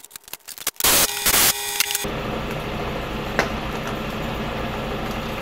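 Power wrench running steadily for several seconds, spinning out the starter's 14 mm mounting bolts, after a few clicks and a short loud burst of noise.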